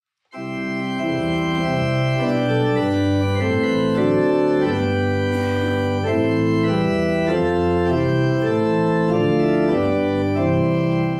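Organ playing slow, held chords, fading out near the end.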